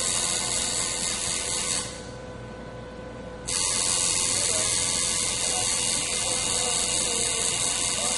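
Tattoo machine buzzing steadily as the needle works ink into skin; the sound drops away sharply for about a second and a half around two seconds in, then comes back.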